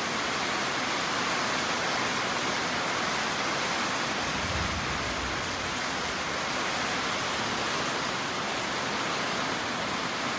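Heavy rain pouring down in a steady hiss. A brief low rumble comes about halfway through.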